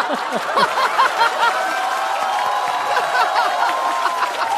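Studio audience laughing and chuckling, with a long held call rising over the laughter about two seconds in.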